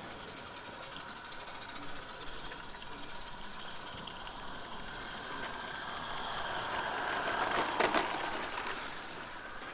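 A live-steam 16mm-scale garden railway train running, with a fast rhythmic clatter. It grows louder to a peak about eight seconds in, where there is a sharp rattle, then fades as it passes.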